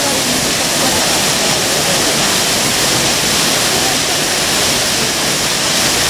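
Steady rush of Minoh Falls, a tall waterfall plunging down a cliff face into its plunge pool.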